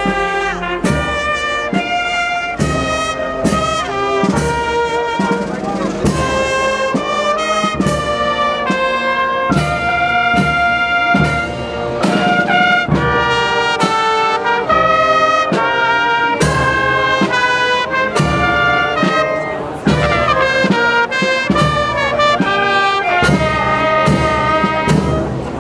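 Brass band of trumpets and trombones playing a tune over a steady beat, stopping at the very end.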